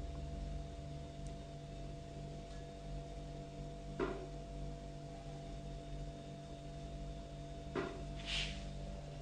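Steady electrical hum made of several low, even tones, broken by two soft knocks about four seconds apart and a short hiss near the end.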